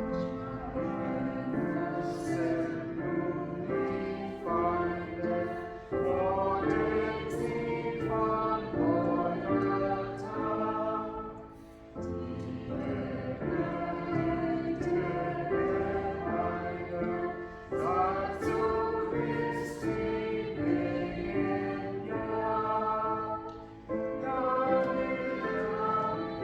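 Church choir singing a slow hymn in phrases of about six seconds, each followed by a brief pause for breath.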